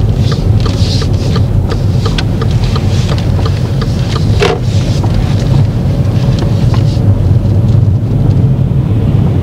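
Inside a moving car: a steady low rumble of engine and road noise, with a scatter of short light clicks or ticks through the first part.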